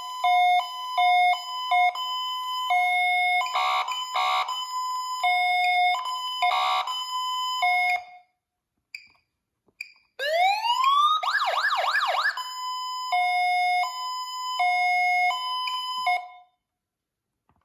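Code 3 Z3 electronic siren sounding a two-tone hi-lo, alternating between two steady pitches and broken a few times by short stuttering bursts. After a pause of about two seconds it winds up in a rising wail, switches to a fast yelp of about four sweeps a second, then returns to the hi-lo before cutting off.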